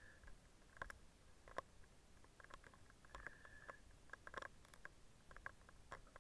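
Faint breathing through a firefighter's self-contained breathing apparatus mask: a short whistling tone from the mask valve at the start and again about three seconds in, with scattered light clicks and knocks of gear and footsteps between.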